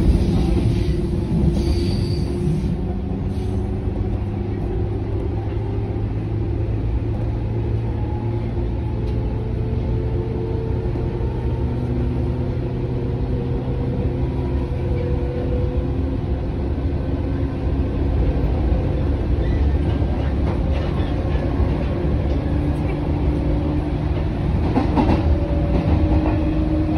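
Running sound inside a JR 103 series EMU motor car, MoHa 103-458, on the move: a steady underfloor rumble with the traction motors' humming tones drifting slowly up and down in pitch. A brief clatter comes about 25 seconds in.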